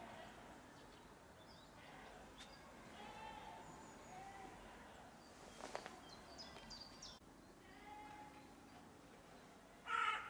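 Faint birdsong and calls: scattered short whistled notes and chirps over a steady low hiss, with a brief louder sound near the end.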